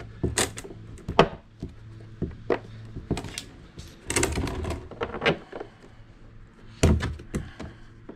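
Hollow knocks and scrapes of a hard plastic dump-cart tub being handled and tipped onto its side, with sharp clicks of loose bolts in their holes. The knocks are scattered, and a rougher scraping stretch comes about halfway through.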